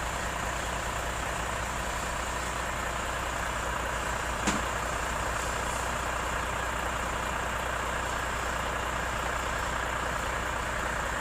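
Container truck's diesel engine idling steadily, with a single short clank about four and a half seconds in.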